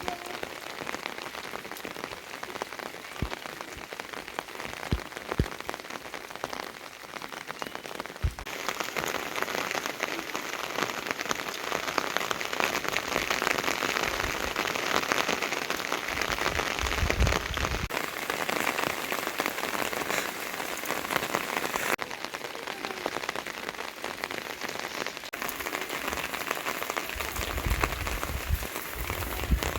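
Steady rain falling, with many separate drops ticking close by. The rain's loudness and tone change abruptly several times, and low rumbles come in briefly in the middle and again near the end.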